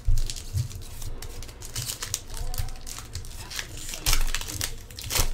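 Hockey card pack wrappers crinkling and tearing as packs are opened and cards handled, with two louder knocks, at the start and about four seconds in.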